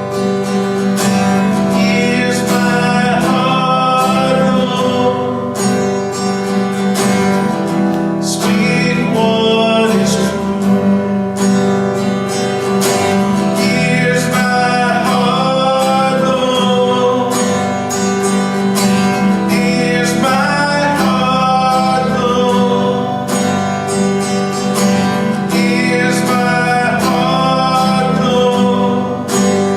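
A worship song: strummed acoustic guitar accompanying a singer.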